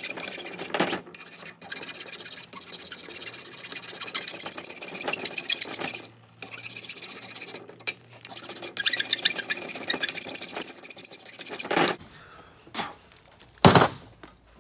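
Hand file rasping back and forth across the notched edge of a metal bar clamped in a bench vise, smoothing the rough edge left where the notch was broken out. The filing comes in two long runs of rapid strokes with a short pause between, and a single thud follows near the end.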